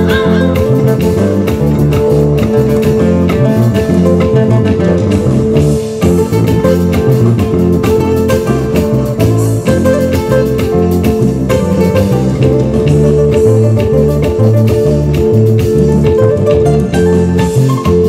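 Live band playing an instrumental passage: acoustic guitars and an electric bass guitar, with a steady beat.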